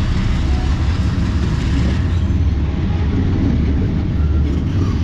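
Diesel-electric freight locomotives passing close by: a loud, steady low engine rumble mixed with rolling wheel-on-rail noise.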